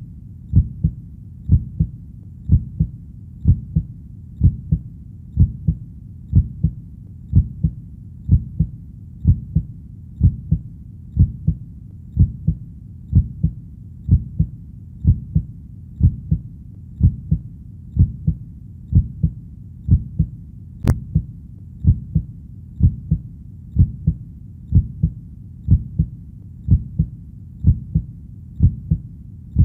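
Heartbeat sound: a steady, even rhythm of low double thumps (lub-dub), about one beat a second.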